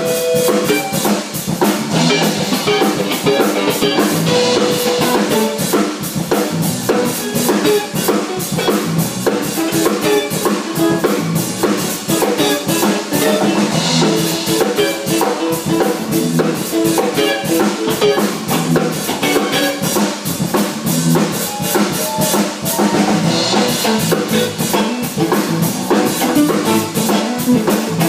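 A band jamming live: a drum kit keeps a steady beat with bass drum, snare and rimshots under moving melodic instrument lines.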